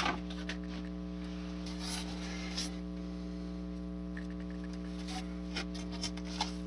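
Steady electrical mains hum, with a few faint scrapes and rubs as a cut piece of homasote board is handled and laid down onto the glued layout base.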